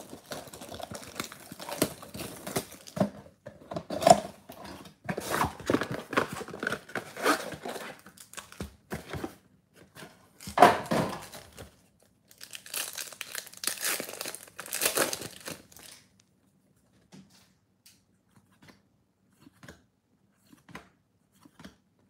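Hands tearing open a cardboard trading-card box and ripping and crinkling the card pack wrappers, in dense rustling bursts, loudest about four and eleven seconds in. After about sixteen seconds it drops to faint scattered ticks of cards being handled.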